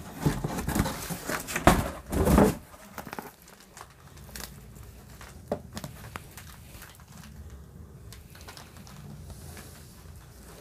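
Cardboard shipping box scraping and crinkling as the boxed router is pulled out of it, loudest in the first two and a half seconds. Then quieter handling of the router's retail box, with a few light knocks.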